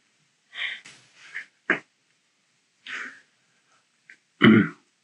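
A few short, breathy noises and a quick click spaced out over the seconds, then a louder brief voiced sound, like a grunt or throat noise, about four and a half seconds in.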